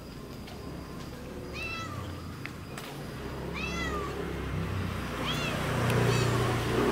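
An orange-and-white domestic cat meows three times, each a short call that rises and falls in pitch. A low steady hum grows louder through the second half.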